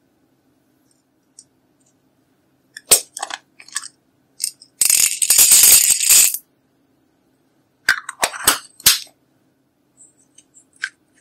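Small beads rattling as they are tipped out of a little plastic cup and spill onto loose glitter, for about a second and a half near the middle. Before and after this come a few sharp clicks and taps from plastic cosmetic containers being handled.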